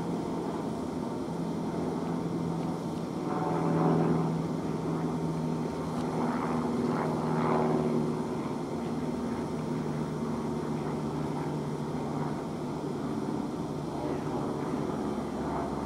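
Class 450 Desiro electric multiple unit pulling away over pointwork, giving a steady low hum, with pitch glides from its traction equipment a few seconds in.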